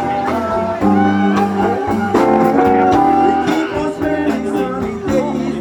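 Live band playing a song on guitars, with a singing voice.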